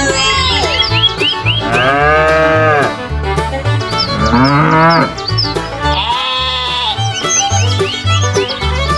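Upbeat background music with a steady repeating bass line, with several farm-animal calls laid over it, each lasting about a second.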